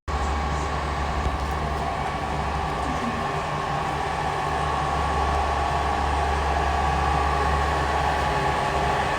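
Cooling fans of a lipo laser slimming machine and its treatment pads running, a steady electric hum with a low drone and a few steady whining tones.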